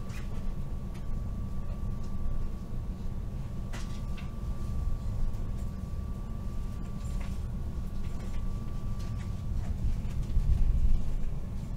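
Interior running noise of a DB Intercity 2 Stadler KISS double-deck electric train pulling out of a station: a low rumble with a steady high tone, and a few sharp clicks and knocks. The high tone drops out near the end.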